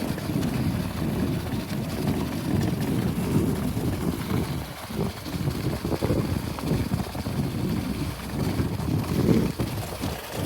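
Bicycle tyres, Schwalbe G1 gravel tyres, rolling downhill over packed snow and ice with gravel underneath, an uneven, continuous low rumble, with some wind on the microphone.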